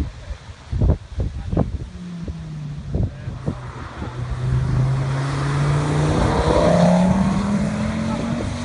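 Ford Focus ST engine pulling hard as the car drives through a corner and away down the straight, its note climbing steadily from about halfway and loudest near the end. A few low thumps of wind on the microphone come in the first three seconds.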